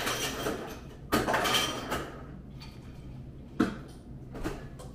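Tableware being handled on a table: two short clattering, scraping noises, then a sharp knock about three and a half seconds in and a softer one near the end, as of things being set down.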